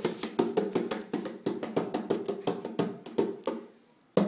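Hand drumming on the bottoms of upturned plastic buckets: a fast run of hollow slaps, about five or six a second, that stops about three and a half seconds in, followed by one last loud hit near the end.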